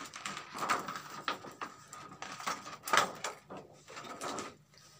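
Thin plastic reflector sheet of an LED TV backlight being peeled up and lifted off the metal back panel: irregular crackling, rustling and clicks of flexing plastic, with a sharper crack about three seconds in, dying away near the end.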